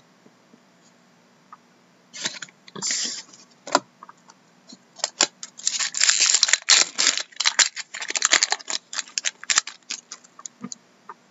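Foil trading-card pack wrapper being torn open and crinkled, a dense run of crackling in the middle. Scattered clicks and rustles of cardboard cards being handled come before and after.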